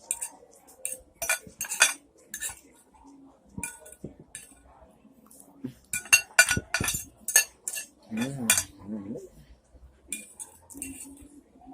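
Metal cutlery clinking and scraping against a plate of spaghetti: a scattered string of sharp clinks with short pauses between them.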